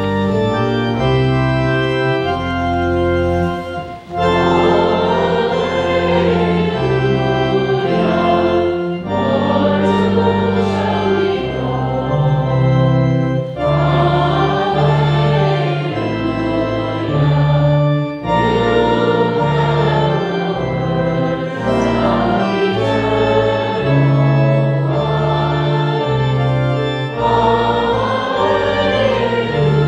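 Church organ playing the gospel acclamation, at first alone. About four seconds in, voices join, singing in phrases over the sustained organ chords.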